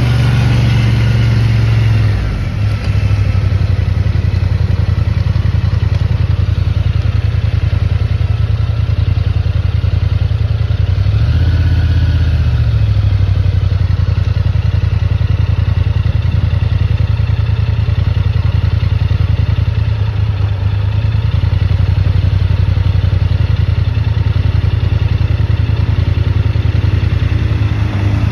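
ATV engine running steadily, with a brief rise and fall in revs about twelve seconds in.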